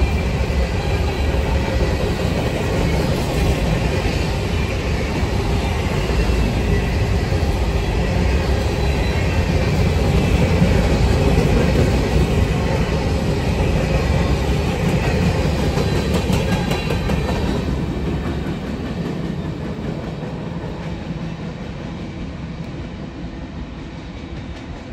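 Freight train of covered grain hopper cars rolling past close by: a steady rumble of steel wheels on the rails with some clicking. Near the end it fades away as the last cars pass.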